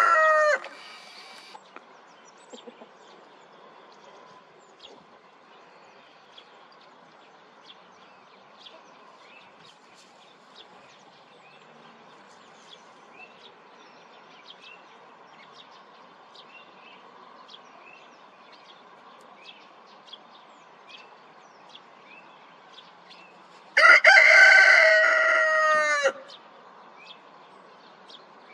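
Domestic rooster crowing twice: the tail end of one crow right at the start, then a full crow of about two and a half seconds that falls in pitch at its end, a few seconds before the end.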